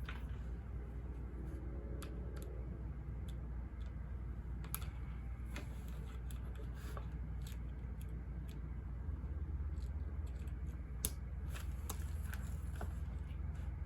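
Steady low white-noise hum with scattered light clicks and taps of desk work, typical of typing or handling study things. The hum thickens slightly in the bass about two-thirds of the way through.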